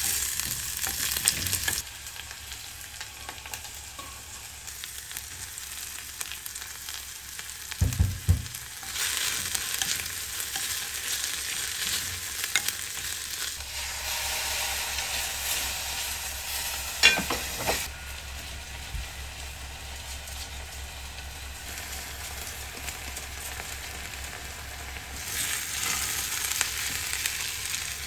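Onion, mushrooms and rice sizzling in oil in a donabe clay pot and being stirred with a spatula. The sizzle comes and goes in spells, with a few knocks against the pot.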